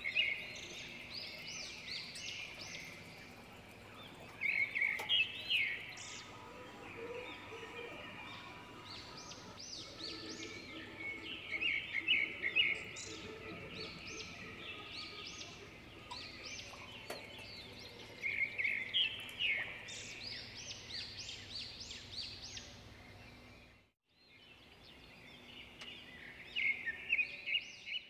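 A bird calling in quick series of short rising chirps, the series repeating every few seconds over a faint steady background. The sound drops out completely for a moment near the end, then the chirping returns.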